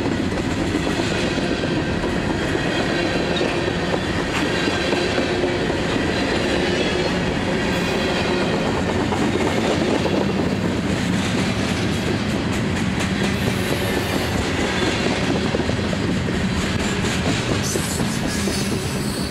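Freight train cars passing close by, first covered hoppers and then empty bulkhead flatcars. Their steel wheels make a steady rumble on the rails, with a run of clicks over the rail joints in the second half.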